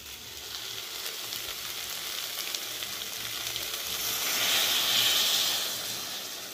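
Shredded chicken frying in a kadai, sizzling steadily. About four seconds in, the sizzle swells into a louder hiss as the chicken's boiling stock is poured onto the hot pan, then dies down.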